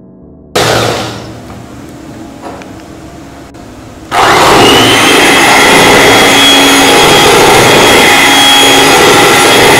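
Electric hand mixer beating cake batter in a metal bowl, mixing eggs into the butter mixture. It starts suddenly about half a second in and runs fairly quietly, then about four seconds in it becomes much louder: a steady motor whine at high speed.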